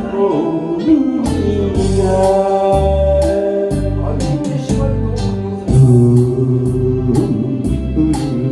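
A singer singing a Korean popular song over a backing track with a steady drum beat and bass, one sung line ending a couple of seconds in.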